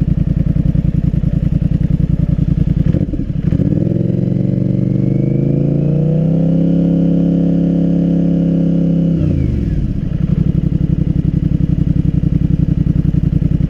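Polaris Sportsman Highlifter 850's engine through a Big Gun EVO U exhaust, idling with a steady pulse, revved up about three seconds in, held at higher revs for a few seconds, then dropped back to idle. It has just been restarted after a no-start and is probably still burning off excess fuel.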